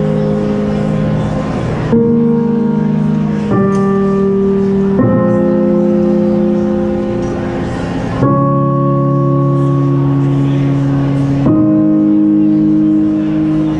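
Slow keyboard music of long held chords, each chord sustained and then changing to the next every two to three seconds.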